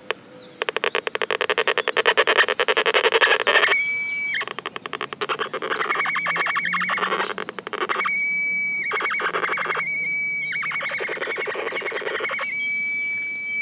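Terminator Pulse Hunter pulse-induction metal detector's audio with the sound threshold turned up: about three seconds of rapid crackling clicks, then a steady high-pitched tone that cuts in and out several times.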